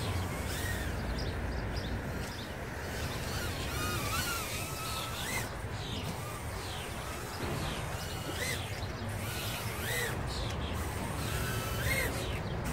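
Birds calling outdoors: short rising-and-falling notes repeated at irregular intervals over a steady background hiss.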